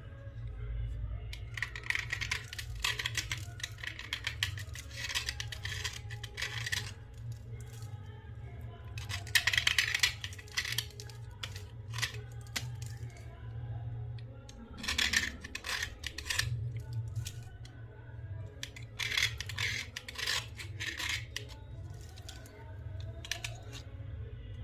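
Slate pencils crunching and snapping up close, in four bursts of rapid crisp clicks with short pauses between them, over a steady low hum.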